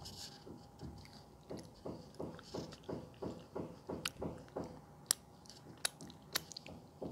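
Close-miked chewing of soft, creamy durian flesh: steady wet chewing about three strokes a second, with a few sharp lip smacks in the second half as she licks her fingers.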